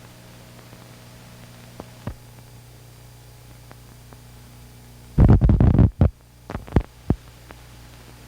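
Steady low hum with a couple of faint clicks, then a sudden cluster of loud low thumps about five seconds in, followed by a few sharp pops.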